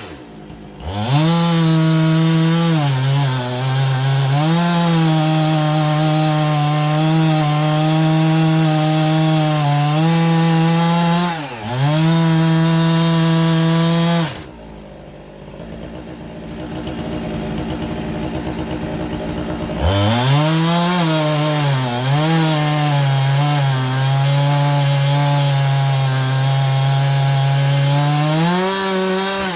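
Two-stroke chainsaw at high revs cutting Korean red pine, its pitch sagging under load and recovering as the bar bites and frees. About halfway through it drops to idle for several seconds, then revs back up and cuts again.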